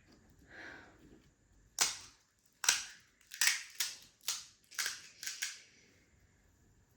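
Crisp fried puri shells (gol gappe) cracking: about eight sharp crunches in quick succession, roughly two a second, starting about two seconds in.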